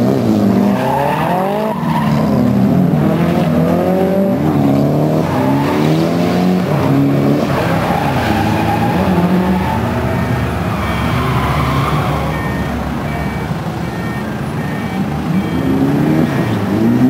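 Drift cars' engines revving hard, their pitch swinging up and down again and again as they slide sideways through the corners in tandem, with tires squealing and skidding on the asphalt.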